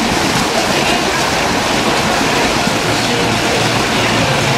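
Steady din of a swimming pool: spectators chattering on the deck and the water sloshing around swimmers resting at the wall.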